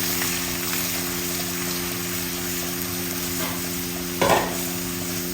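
Garlic paste and whole spices sizzling in hot oil in a pan while being stirred, over a steady low hum. A brief louder sound about four seconds in.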